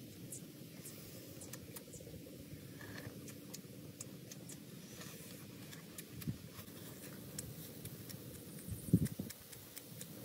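Close-up eating sounds of grilled frog: small crunching, chewing and lip-smacking clicks, with a couple of short low bumps about nine seconds in.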